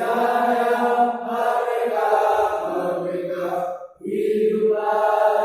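A choir singing long held notes together, breaking off briefly about four seconds in before the next phrase.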